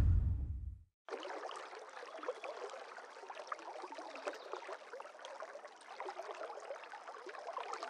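Music dying away in the first second, then faint waterside ambience: soft trickling, lapping water with many tiny scattered crackles.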